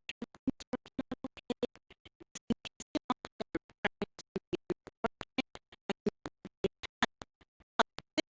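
Background music chopped into a rapid stutter of short pulses, about seven a second.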